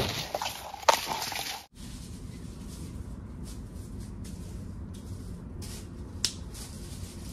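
Rustling and crackling of brush against a handheld camera with a sharp knock at the start, then, after a cut about two seconds in, faint crunching footsteps on dry leaf litter at a walking pace, with one sharper snap of a twig near the end.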